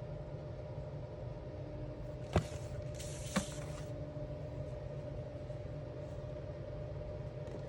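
Alcohol markers being handled on paper: two sharp clicks about a second apart, each with a short high scratchy hiss, over a steady low background hum.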